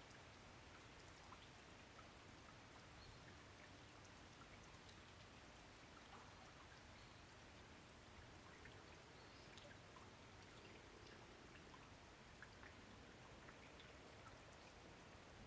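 Faint rain falling, scattered separate drops ticking over a steady soft hiss.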